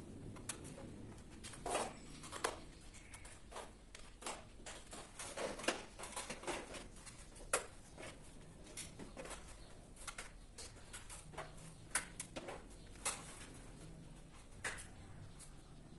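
Irregular plastic clicks and light knocks as miniature circuit breakers in a distribution board are handled and worked on with a screwdriver.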